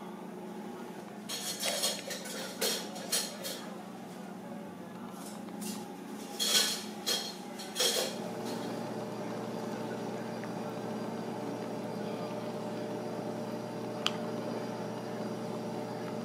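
Dishes and cutlery clinking in a string of short, sharp clatters during the first half, over a steady background hum. The hum shifts about halfway through, and there is one last small click near the end.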